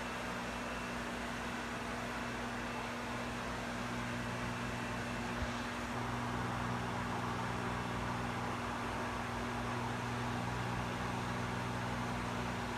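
Microwave oven running: a steady electrical hum over the whir of its fan, stepping up slightly in level about six seconds in, with a faint click just before.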